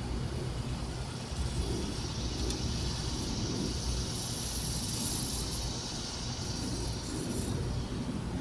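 A hiss that swells from about a second and a half in and fades out near the end, over a steady low outdoor rumble.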